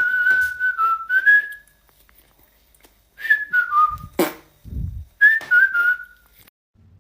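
A person whistling a short tune of stepped, descending notes in three phrases, with a sharp pop and a short low burst in the pause between the second and third phrases.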